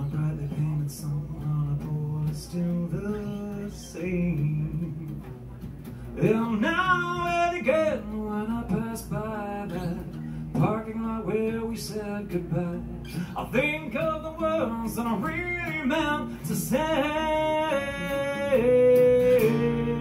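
A man singing to his own acoustic guitar. The guitar plays throughout, and the voice comes in strongly about six seconds in.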